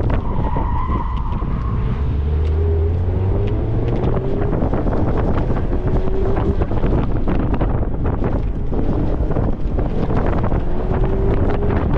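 Mazda MX-5 Miata's four-cylinder engine pulling hard through an autocross course, its note rising again and again as the car accelerates between cones, with wind buffeting the open cockpit. The tires squeal briefly near the start in a slow corner.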